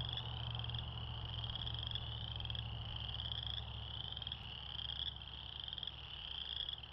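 Night chorus of calling frogs: high pulsed trills, each rising slightly in pitch, overlapping and repeating about once a second, over a low steady hum.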